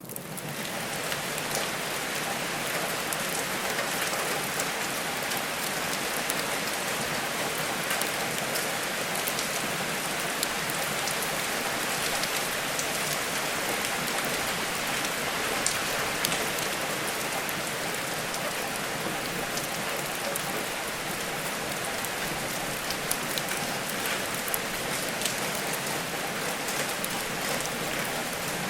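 Steady rain on a surface, fading in over the first second, with scattered sharp clicks of drops or crackles throughout.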